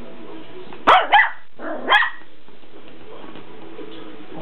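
Small dog barking three short, sharp barks, two in quick succession about a second in and a third just under a second later.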